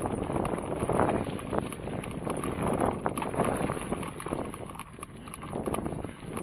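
Footfalls on a dry-leaf-covered dirt forest trail, thudding and rustling about twice a second as the camera moves along it, with some wind noise on the microphone.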